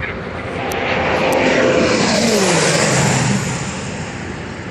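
Socata TBM 850 single-engine turboprop (Pratt & Whitney PT6A-66D) making a fast, low flyby at about 250 knots. Its propeller and turbine sound swells to a peak, then drops steeply in pitch as it passes, about two to three seconds in, and fades as it pulls away.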